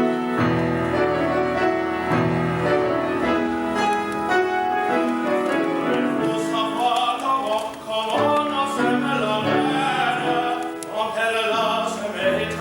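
Background music: a men's chorus singing with piano accompaniment, the voices coming in strongly about halfway through.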